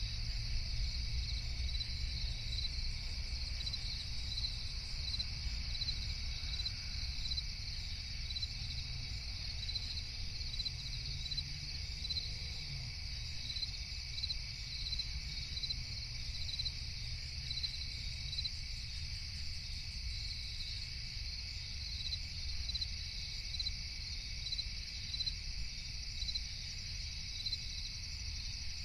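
Night chorus of crickets chirping steadily in an even, repeating pattern, over a continuous low rumble.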